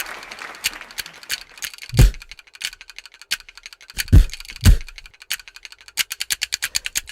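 Sparse percussion: a few deep drum hits spaced apart, with light clicking taps that speed up into a fast even run near the end.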